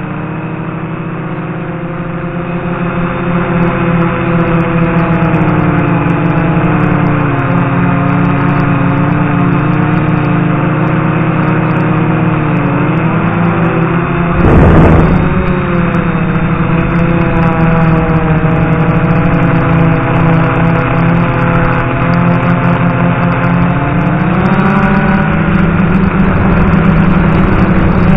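DJI F450 quadcopter's electric motors and propellers running, heard from the camera on board: a steady pitched drone that falls and rises as the throttle changes, climbing in pitch near the end. About halfway through there is a brief loud rush of noise.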